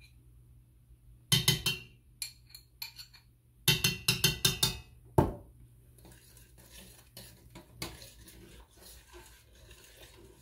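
A cooking utensil clinking and scraping against a pan, in two quick bursts of clinks a couple of seconds apart, then a single loud knock about five seconds in. After that only faint, dense crackling from the pan.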